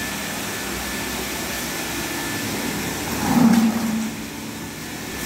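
Reverse-osmosis water plant running, its pumps giving a steady mechanical hum with a faint thin whine. About three seconds in there is a brief louder bump.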